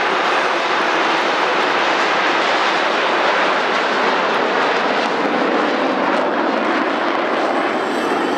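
A formation of Aermacchi MB-339 PAN jet trainers, each with a single turbojet, flying past with a loud, steady jet noise.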